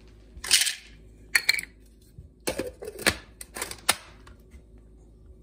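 Large dry dog kibble poured from a small cup into the plastic bowl of a Cuisinart Mini-Prep Plus food processor: a short rattling pour about half a second in, then several separate sharp clicks of hard pieces.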